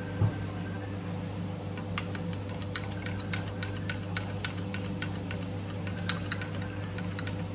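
A pink spoon stirring milky coffee in a glass measuring jug, ticking against the glass a few times a second from about two seconds in, over a steady low hum. A dull thump comes just after the start.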